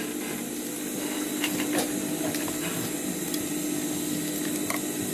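Sewing machine running steadily, its motor humming, as it stitches a seam through canvas.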